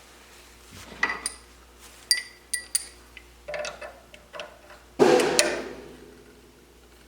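Small metal objects clinking and tapping against each other, several sharp clicks with a short ringing tone about one to three seconds in, then softer knocks and a louder scraping rattle about five seconds in that fades out.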